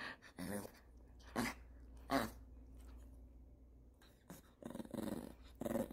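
Maltese dog making a string of about five short, pitched 'talking' vocalizations, a grumbling moan-like voice rather than barks, begging because it is hungry.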